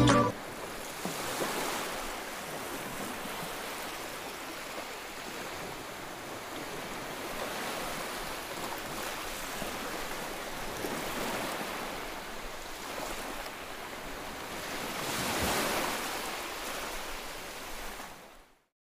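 Sea waves washing onto a beach, a steady rush that swells and ebbs, loudest about fifteen seconds in, then fading out.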